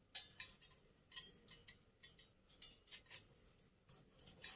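Irregular light clicks and taps of small parts being handled and fitted together during assembly, about a dozen sharp ticks spread unevenly.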